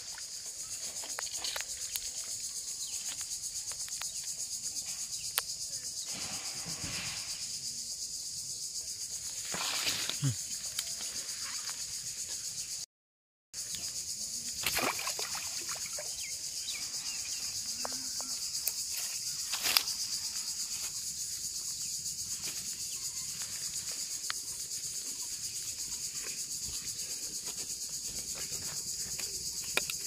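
Steady high-pitched insect chorus, with a few brief splashes and rustles from the water as a hooked fish is pulled out.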